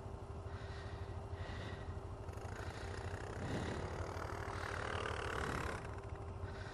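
ATV engine running steadily while the quad is ridden along a trail, growing louder for a second or two about two-thirds of the way through.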